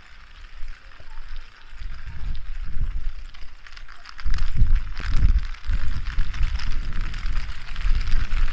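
Gusty wind buffeting the microphone, over a steady rustling whir from a field of many plastic and foil pinwheels spinning in the breeze. The wind gusts much harder about four seconds in.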